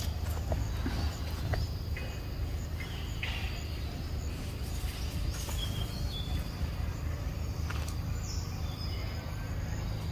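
Outdoor forest ambience: a steady low rumble with a few short bird chirps and faint clicks scattered through it.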